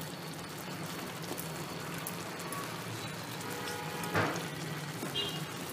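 Grated white pumpkin halwa in milk and condensed milk simmering and sizzling in a steel pan as it cooks down, with a spatula stirring through it. One short scrape of the spatula about four seconds in.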